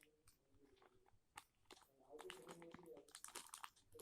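Near silence, with faint scattered clicks and crackles of packaging being handled, more of them after about three seconds.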